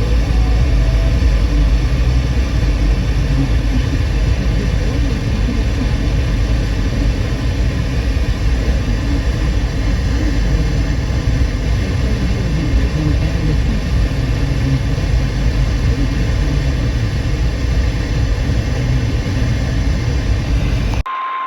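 Steady, loud low rumble of a vehicle's engine and road noise, which cuts off abruptly near the end as a single steady high beep tone begins.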